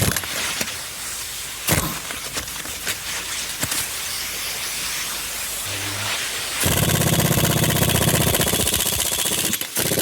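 Impact wrench hammering on over-torqued wheel lug nuts, trying to break them loose. A rapid rattle sets in about two-thirds of the way through and pauses briefly near the end; before it there are a few sharp clicks and knocks over a hiss.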